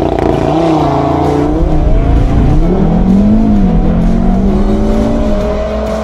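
Audi TT RS's turbocharged five-cylinder engine accelerating hard through the gears. Its note climbs in pitch and drops back at each upshift, several times over.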